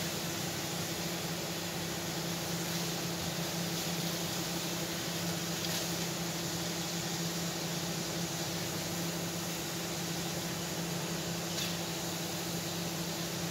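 Kitchen range hood fan running steadily with a low hum and a whoosh of air. Two light clicks of a spatula against the wok come about six seconds in and near the end.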